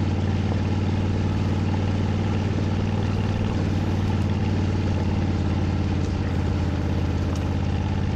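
Honda Africa Twin's parallel-twin engine running at a steady note while riding a dirt track, with steady wind and road noise behind it.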